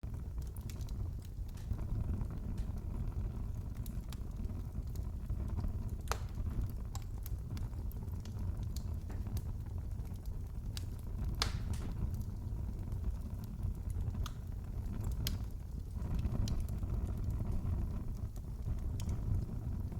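Wood fire crackling in a fireplace: a steady low rumble of flames with scattered sharp pops, the strongest about six seconds in and a little past halfway.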